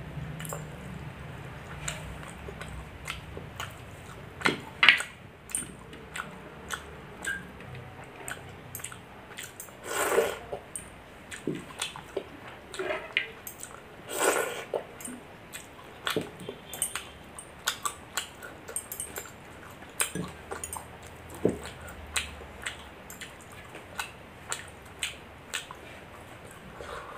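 Close-miked eating of milk rice: wet chewing, lip smacks and squishing, with irregular clicks throughout and a few louder wet mouthfuls.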